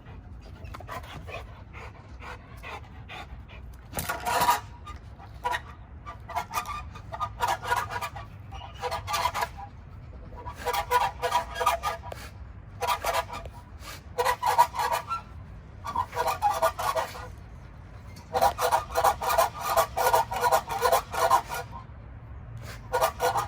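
Large pitbull-type dog panting hard in fast runs of breaths, about five or six a second, each run lasting a second or two with short pauses between, while it works a spring pole.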